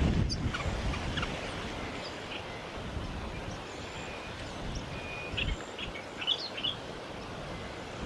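Short, high chirps from white-plumed honeyeaters at the nest, a few scattered early on and a quick run of them about five and a half to six and a half seconds in. Wind rumbles on the microphone, strongest near the start.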